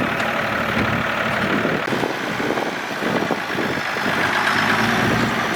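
Off-road 4x4 vehicle engine running steadily.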